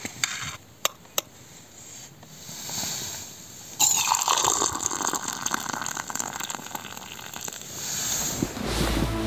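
A spoon clinks a few times against a steel mug, then water is poured in a steady stream into a steel cup onto black tea leaves, starting suddenly and running for about four seconds. Music comes in near the end.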